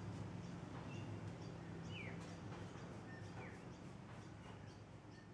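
Small birds chirping, short falling chirps about once a second, over a steady low hum. The whole sound fades out toward the end.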